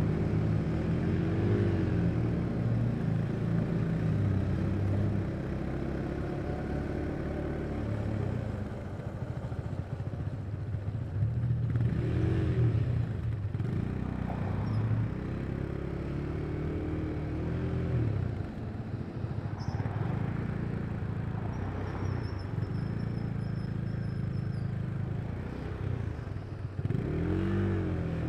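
Husqvarna Svartpilen 401's single-cylinder engine running on the move, its pitch rising and falling several times as the throttle is rolled on and off.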